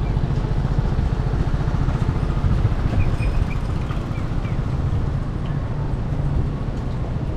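Street ambience dominated by a heavy, steady low rumble, with a few faint short high chirps about three seconds in.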